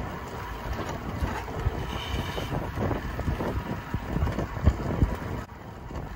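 Wind rumbling on the microphone aboard a fishing boat, with several dull knocks, the loudest about five seconds in. The rumble drops away suddenly shortly before the end.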